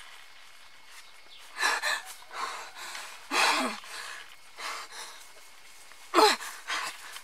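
A woman's breathy gasps and sighs: about six short bursts, a few of them with a voiced tone sliding down in pitch.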